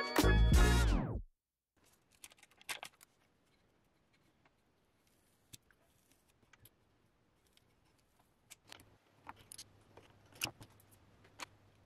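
Background music that cuts off about a second in, followed by scattered faint clicks and light metallic taps from handling the aluminium hot plate enclosure and its heating elements, more frequent near the end.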